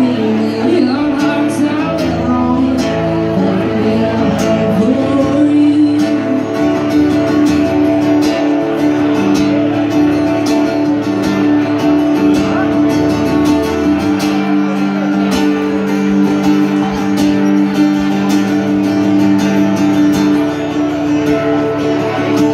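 Live cover of a country song: a woman singing to her own guitar strumming. The voice drops out for a stretch in the middle while the guitar plays on.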